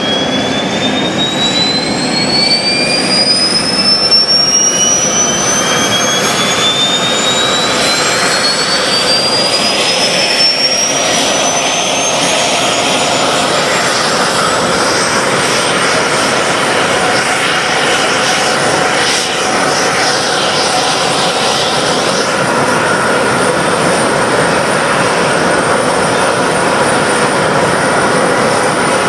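F-4 Phantom II's J79 turbojet engines spooling up. A high whine rises steadily for about fifteen seconds, then holds as a steady whistle over a loud, even jet roar.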